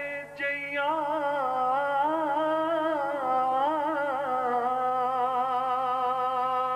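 A man singing Sufi kalam unaccompanied, sliding up into a single long note and holding it for about six seconds with a wavering vibrato.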